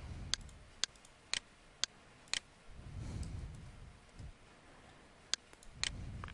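Computer mouse button clicks: five in a row, about two a second, then three more near the end, with a low dull rumble in between.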